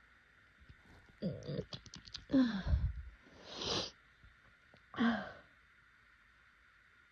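A person's allergy sneezing fit: a quick run of wet, snotty sneezes with sharp breaths between them, the loudest about two and a half seconds in.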